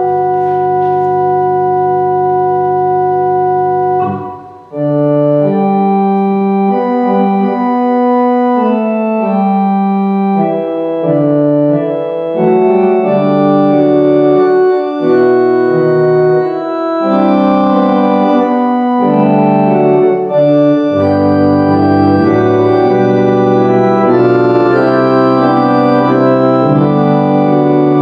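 Organ playing: a held chord releases about four seconds in, then slow chords move under a melody line.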